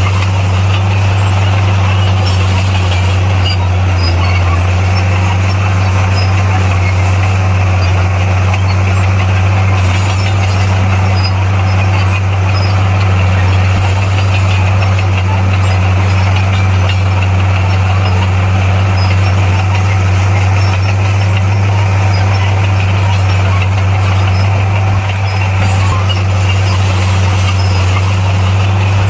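Bulldozer's diesel engine running steadily under work, a constant low drone with no change in pitch.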